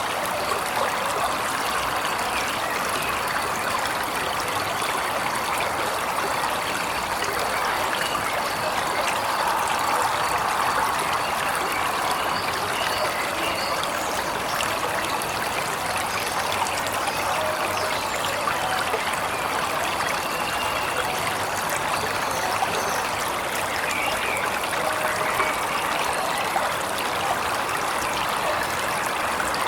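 Waterfall water splashing and rushing in a steady, even wash, with faint bird calls now and then above it.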